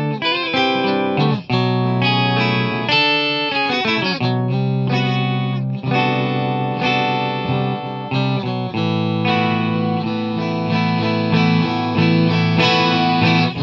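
Fender Jazzmaster electric guitar played clean through an Electro-Harmonix Intelligent Harmony Machine in Perfect 5th Up mode, each note and chord joined by a pitch-shifted harmony a fifth above. A phrase of picked notes and chords, with longer ringing chords in the second half.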